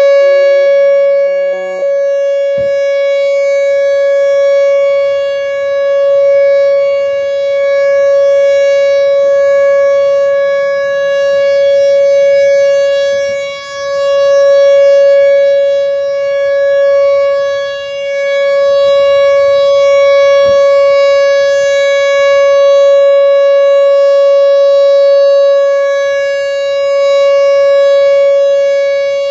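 Whelen Vortex rotating electronic outdoor warning siren sounding a steady, unwavering alert tone, the full-alert signal of a storm warning siren test. Its loudness swells and fades every few seconds as the rotating speaker head sweeps past.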